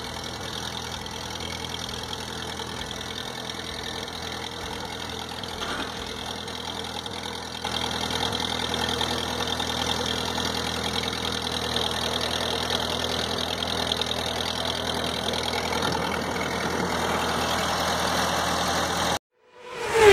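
Ford 8N tractor's four-cylinder flathead engine running steadily, getting louder about halfway through. The sound cuts off suddenly near the end, followed by a loud falling tone.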